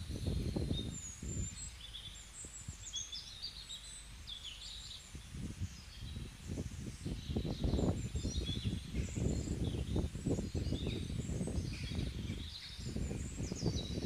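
Small birds chirping and twittering in quick, varied calls, over wind gusting on the microphone in low, irregular rumbles that grow stronger in the second half.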